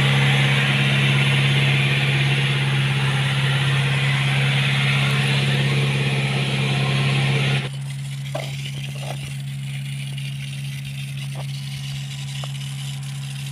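Three-cylinder Yanmar water-pump engine running at a steady hum while pumping water for irrigation. A loud rushing hiss of the spraying water lies over it and cuts off abruptly a little past halfway, leaving the engine hum and a few light knocks.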